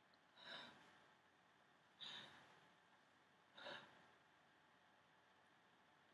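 A woman's faint, breathy sobs: three short shaky breaths about a second and a half apart.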